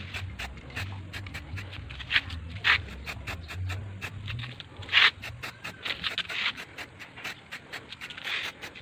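Aerosol can of acrylic lacquer spray paint hissing in several short bursts as black paint is sprayed onto metal parts, over a fast, even clicking.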